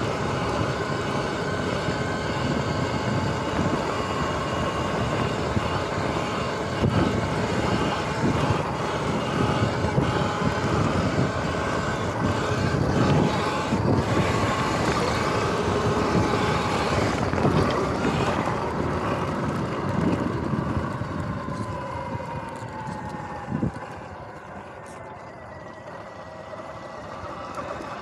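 Sur-Ron X electric dirt bike riding over grass: a steady electric-motor whine over a rough rumble of wind and bumpy ground. After about twenty seconds the whine drops in pitch and the sound gets quieter as the bike slows, with one short knock a few seconds later.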